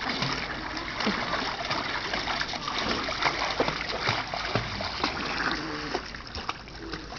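Water splashing and sloshing as a small child swims, arms reaching and slapping the surface in an irregular run of small splashes.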